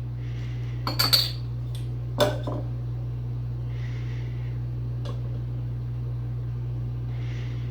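Glassware clinking: a few sharp glass knocks, bunched about one second in with another about two seconds in, over a steady low hum.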